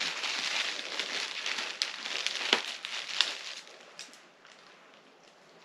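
Protective wrapping crinkling and crackling as it is pulled off a piece of china, with a few sharper crackles; the handling stops about four seconds in.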